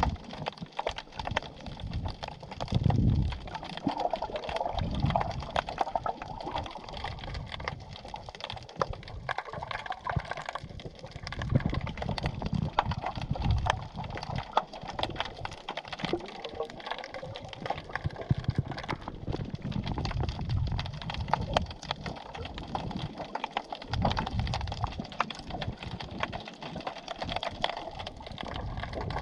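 Sea heard underwater through a snorkeling camera: a dense, constant crackle of tiny clicks over low, uneven water surges and sloshing.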